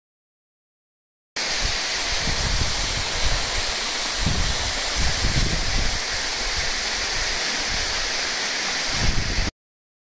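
Waterfall: a steady rushing hiss of falling water with uneven low rumbling underneath. It cuts in abruptly about a second in and cuts off just as suddenly near the end.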